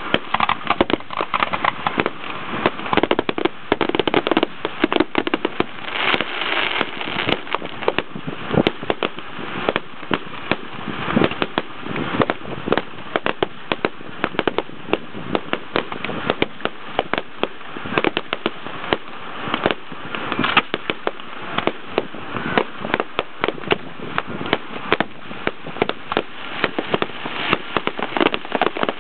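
Fireworks display: an unbroken barrage of aerial shell bangs and crackling, several reports a second.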